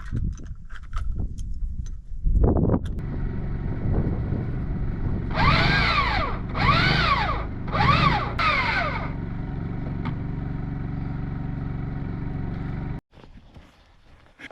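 A motor runs steadily under load and rises and falls in pitch three times, then cuts off suddenly. It is a winch or vehicle pulling a shipping container forward onto blocks.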